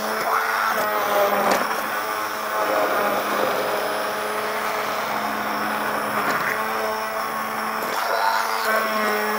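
Stick blender running steadily in a pot of soft-cooked butternut squash and carrot soup, puréeing it smooth: a continuous motor hum with the churning of the thick liquid.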